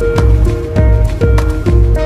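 Background music with a steady beat of about two a second, a heavy bass and held melody notes.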